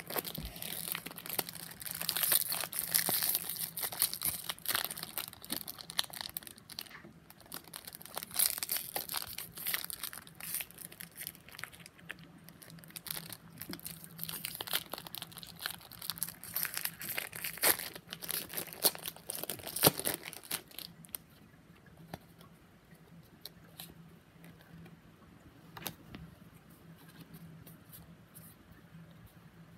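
Foil Pokémon card booster-pack wrappers crinkling and being torn open. About two-thirds of the way through the rustling dies down to quieter handling of the cards, with a few soft clicks.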